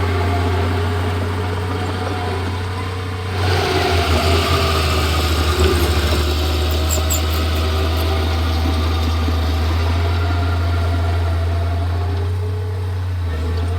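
Diesel engine of a Komatsu D31P crawler bulldozer running steadily; a little over three seconds in it comes under load and gets louder and rougher, pulsing for a couple of seconds before settling into a steady working note.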